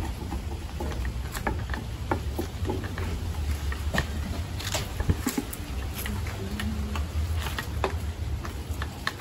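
Light, scattered clicks and knocks of cooking work, utensils against pots and bowls, over a steady low rumble.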